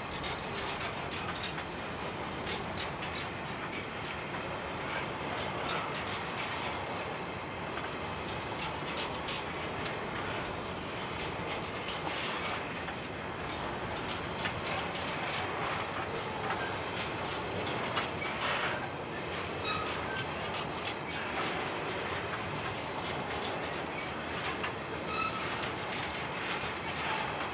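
Empty coal hopper wagons rolling past in a steady stream: a continuous rumble of steel wheels on rail, with frequent clicks and clatter from the wheels and rail joints.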